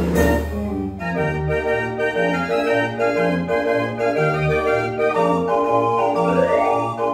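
Dutch street organ (draaiorgel) playing a tune: sustained pipe notes over a bass-and-chord accompaniment that alternates about once a second. A percussion crash dies away in the first half second, and a quick rising run of notes comes near the end.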